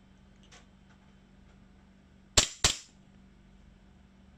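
VFC Sig Sauer M17 gas blowback airsoft pistol firing two quick shots in close succession about two and a half seconds in, with a faint click about half a second in.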